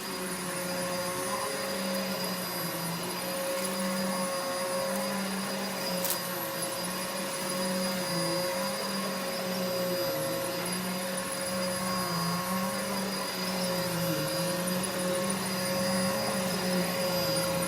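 Vacuum cleaner running steadily while vacuuming a bedroom floor; its motor hum dips briefly in pitch every few seconds.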